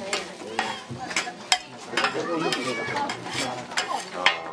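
Metal spatula and scraper scraping and clacking on a flat-top griddle as fried noodles are scooped up, over a light sizzle. Sharp clacks come about a second and a half in and near the end.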